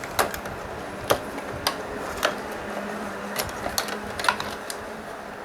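Irregular light clicks and taps, about a dozen in a few seconds, from handling tools or parts, over a faint steady hum.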